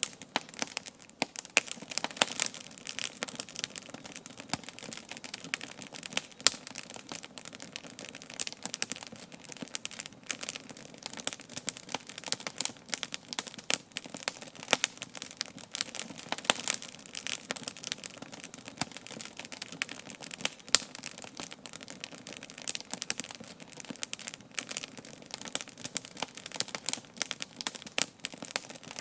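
Campfire crackling: a dense, uneven stream of sharp pops and snaps over a steady hiss.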